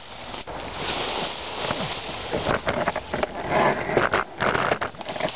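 Irregular rustling and crackling, like movement through dry leaves and brush, with a single sharp click about half a second in.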